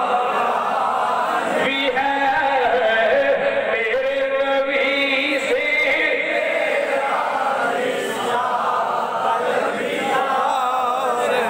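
A man's voice chanting devotional verses in a drawn-out melodic style through a microphone and PA system, with long held notes.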